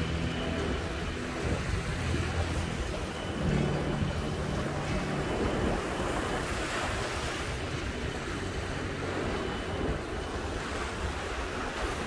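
Sea surf breaking and washing up a beach, swelling and easing every second or two, with wind rumbling on the microphone.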